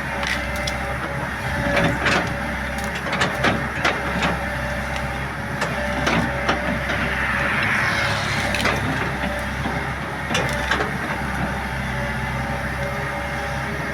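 Excavator running steadily while it breaks up a large tree root, with repeated sharp cracks and snaps of wood all through.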